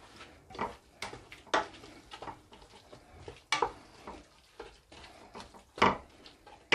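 Wooden spoon stirring chopped spinach frying in red palm oil in a large stainless-steel pot, with irregular knocks and scrapes against the pot, the loudest a little before the end.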